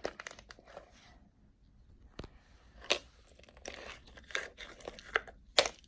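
Slime being mixed by hand with beads stirred into it: irregular sticky crackles and a few sharper snaps.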